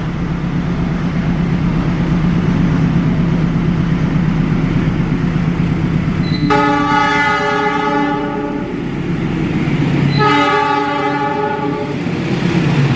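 Diesel locomotive at the head of a passenger train, its engine droning steadily as it runs through a station. It sounds its horn twice: a long blast about six and a half seconds in, then a shorter one about three and a half seconds later.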